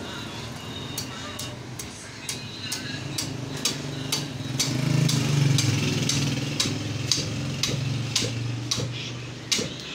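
Butcher's cleaver chopping through a mutton carcass on a wooden tree-trunk block: sharp chops about twice a second, cutting meat and bone into pieces. Under the chops runs a steady low hum, loudest around the middle.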